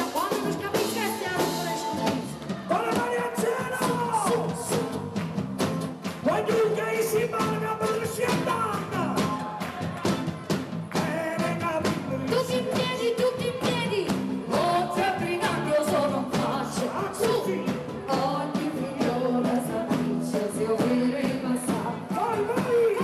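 Live band playing a song, a woman singing lead into a microphone over a drum kit with a steady beat.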